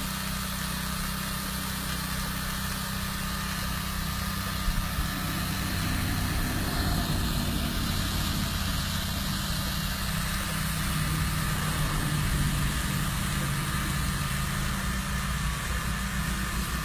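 Engine of a soft-wash pump rig running steadily at a constant speed while soap is sprayed.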